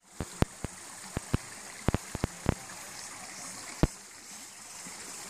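Steady outdoor hiss with a bright high band, over which come about a dozen sharp clicks or knocks at uneven intervals in the first four seconds, the loudest two near the start and just before four seconds in.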